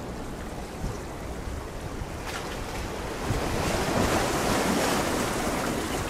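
Sea waves washing in, with one wave swelling louder about three seconds in, over a low rumble of wind on the microphone.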